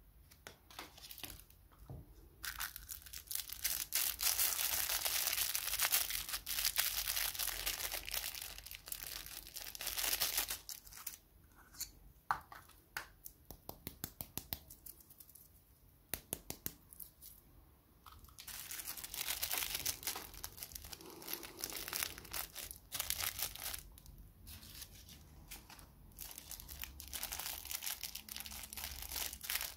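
Clear plastic candy and toy wrappers crinkling and tearing in the hands, a dense rustle full of small crackles that comes in several long stretches with quieter gaps between.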